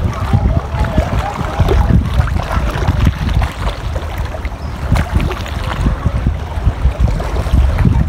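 Wind rumbling on the microphone, unsteady in loudness, over sea water lapping and splashing in a light chop.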